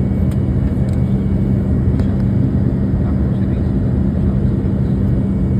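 Steady low rumble of an airliner's engines and rushing air heard inside the passenger cabin during the climb after takeoff, with a constant low hum.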